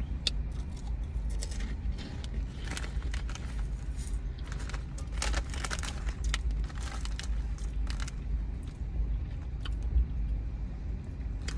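Crinkling of a foil-lined chip bag of hot fries being handled and shaken, with crunching from the fries being chewed, in irregular sharp crackles over a low steady rumble.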